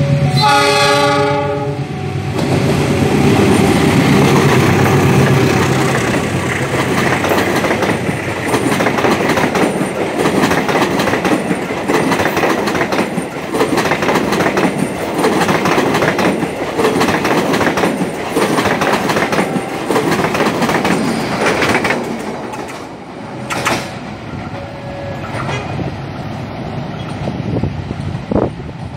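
A passenger train sounds a short horn blast at the start, then passes close by. Its wheels clatter over the rail joints with a dense run of ticks for about twenty seconds, then the sound eases off.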